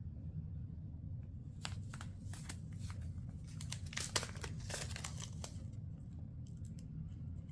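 Crinkling and rustling from hands handling small plastic craft items: a cluster of light crackles and clicks between about one and a half and five and a half seconds in, over a steady low hum.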